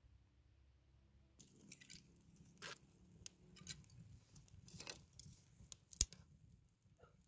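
Dry twigs and straw rustling and crackling as a kindling fire is fed in a clay stove: irregular small crackles begin about a second and a half in, with one sharp snap near the end.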